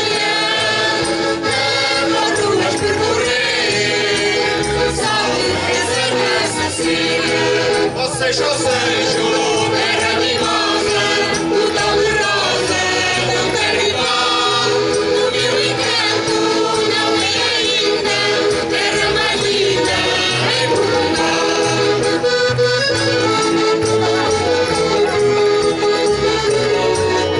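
Mixed choir of men, women and children singing a Portuguese folk song in unison, accompanied by accordion and guitars.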